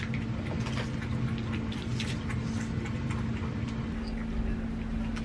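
Dry cat kibble in ceramic bowls: quick, irregular small clicks and crunches as the food is handled and eaten, over a steady low hum.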